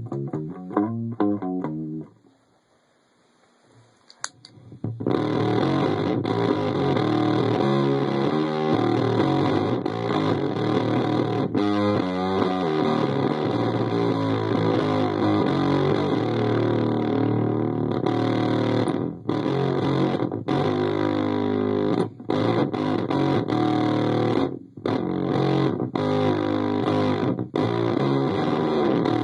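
Bass guitar played through a breadboard prototype dropout fuzz pedal: heavily distorted, fuzzy bass riffing. After a brief pause with a click a few seconds in, the playing runs dense, cutting out abruptly several times for split seconds in the second half.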